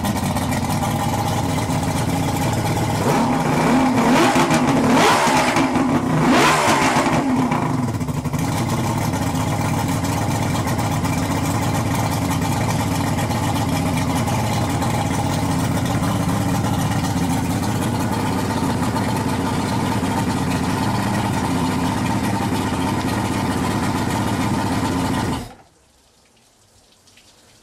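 Yamaha V6 225 two-stroke outboard, converted to run on LPG, running steadily and revved up and back down twice a few seconds in. It then shuts off, cutting out suddenly near the end.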